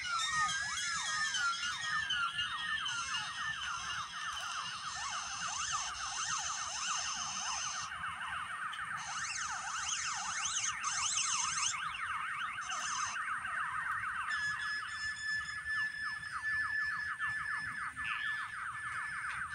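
Electronic noise instrument making warbling, siren-like tones that turn into a dense stream of fast up-and-down pitch sweeps, with higher steady tones cutting in and out in blocks. A steady high tone joins about three-quarters of the way through.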